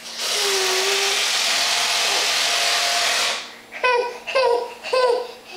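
Handheld power screwdriver running for about three seconds, then stopping. Straight after, a baby gives several short, high-pitched yells.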